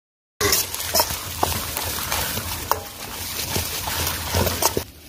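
Green chillies, dried red chillies and garlic sizzling in hot oil in a steel wok, stirred with a steel ladle that scrapes and clinks against the pan every so often. The sound cuts in about half a second in and drops quieter near the end.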